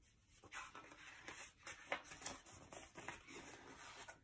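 Faint rustling and flapping of paper as the cover and pages of a large paperback picture book are turned, several short rustles in a row.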